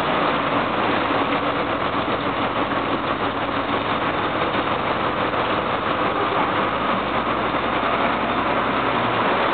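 Passenger water bus's engine running steadily while under way, a low hum beneath a dense hiss of heavy rain and churning wake water.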